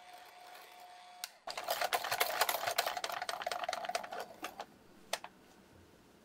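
KitchenAid hand mixer with a wire whisk whipping cream to stiff peaks in a glass bowl. A steady motor hum becomes, about a second and a half in, a much louder rattling whir as the whisk clatters in the bowl. It stops about two-thirds of the way through, followed by a couple of single clicks.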